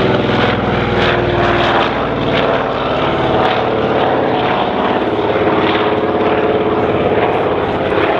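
The twin Pratt & Whitney R-2000 radial piston engines and propellers of a de Havilland Canada DHC-4 Caribou, running in flight as a loud, steady propeller drone whose pitch shifts slightly.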